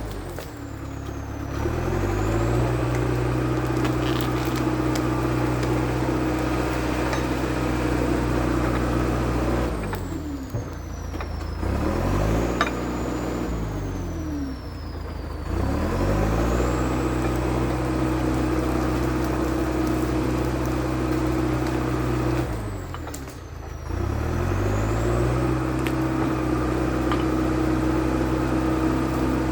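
International Harvester TD8E bulldozer's diesel engine running steadily. Its engine speed sags and climbs back up several times as it works.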